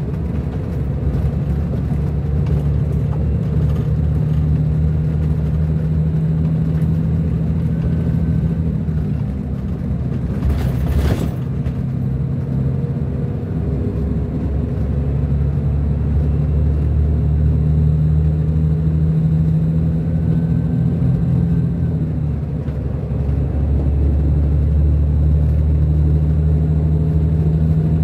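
Scania DC13 inline-six diesel of a Scania K440 IB coach running under way, heard from inside the cabin as a steady, loud rumble. The engine note falls away and comes back twice, around nine seconds in and again around twenty-two seconds. A short hiss comes about ten seconds in.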